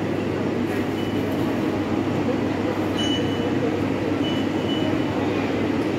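Steady low machine hum and rumble, with a few faint short high beeps.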